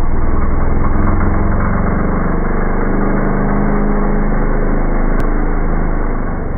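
Trials motorcycle engine running steadily close by, with a sharp click about five seconds in.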